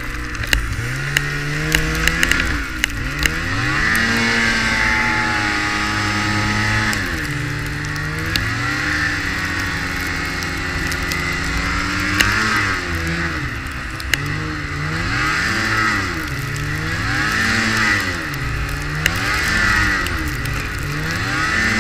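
Snowmobile engine running under the rider, its pitch climbing and falling again and again as the throttle is opened and eased off. There are a few sharp clicks in the first seconds.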